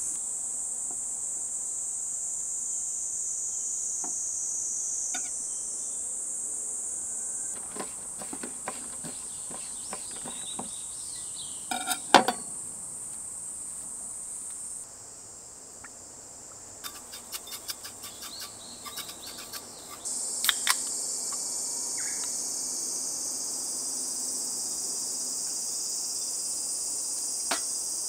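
A steady high-pitched insect chorus, with scattered light clicks and knocks of gear being handled; the loudest knocks come in a cluster about twelve seconds in.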